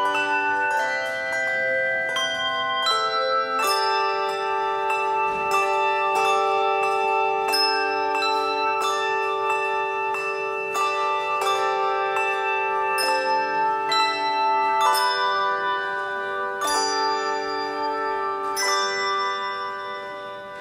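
Handbell choir ringing a slow hymn arrangement: chords of bronze handbells struck and left to ring, changing every second or so. The ringing fades away near the end.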